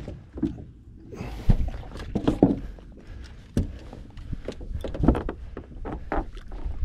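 Scattered knocks and thumps of gear being handled on a boat's deck as a landing net is taken out of a storage compartment and swung out, about five separate knocks over a low rumble.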